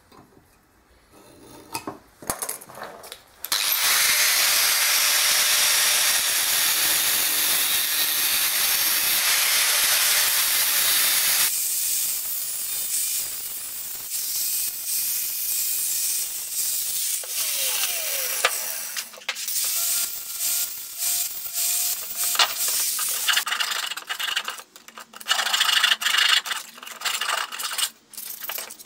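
Angle grinder with a cut-off disc cutting through a thin-walled steel tube held in a vise, running steadily for several seconds, then falling in pitch as it winds down. Near the end, irregular short scrapes and knocks of metal being handled.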